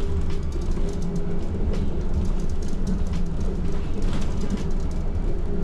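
City bus under way, heard from inside the cabin: a steady low engine drone with frequent small rattles and clicks from the bodywork.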